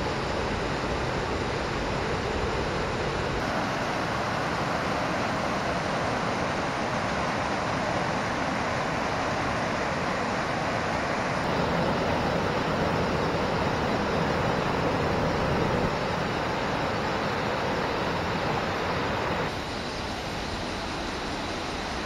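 Steady rushing of a waterfall cascading over rocks into a gorge, shifting a little in tone a few times and dropping slightly in level near the end.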